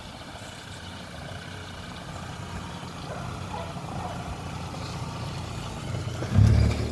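Hyundai Grand i10's 1.2-litre Kappa petrol engine idling with a steady low hum, with a brief louder low-pitched burst near the end.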